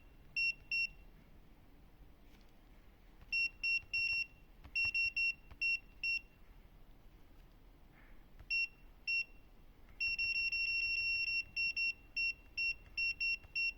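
Midea wall control panel beeping at each button press while its clock is adjusted: short, identical high-pitched beeps in irregular clusters, with a fast run of rapid beeps about ten seconds in.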